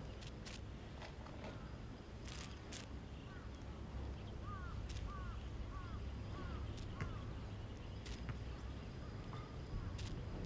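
A bird calls a quick run of about six short falling notes near the middle, over a steady low rumble, with a few sharp clicks scattered through.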